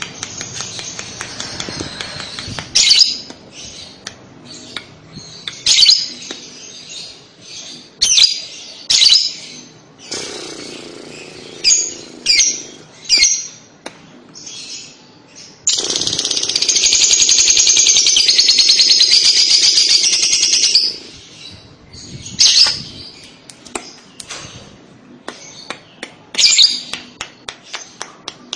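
Fischer's lovebird calling: sharp, shrill chirps every second or two, and about midway a long, rapid chattering trill lasting some five seconds. That trill is the 'kekek' (ngekek) song that keepers play to get other lovebirds to answer.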